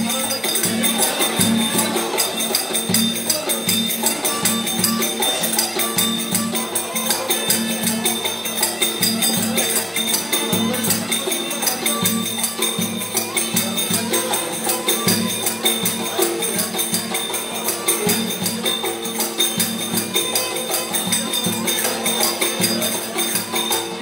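Black Sea kemençe bowed in a lively folk tune, with a davul drum beating rapid strokes under it.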